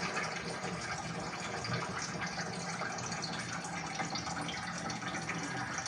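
Heavy rain falling steadily, a continuous wash of water noise with fine patters.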